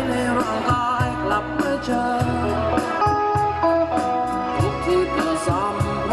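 A band playing: a drum kit keeps a steady beat under a bass line and a melodic lead that bends in pitch.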